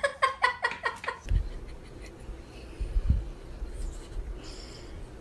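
A cat giving a quick run of short, pitched calls in the first second, followed by a couple of soft low thumps.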